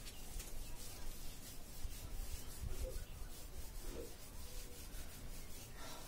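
A whiteboard being wiped clean by hand: a run of short, soft rubbing strokes across the board's surface.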